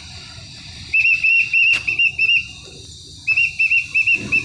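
A shrill whistle sounded as a rapid string of short notes, about four a second, in two runs with a pause of about a second between them. A sharp click comes partway through the first run, over a steady low rumble.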